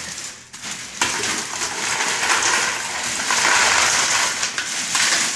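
Plastic bag of ice crinkling as it is torn open, then ice and water tumbling out of the bag into a plastic bucket, starting sharply about a second in.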